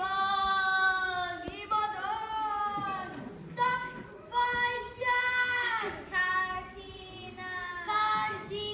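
A group of children singing in short phrases of long held notes.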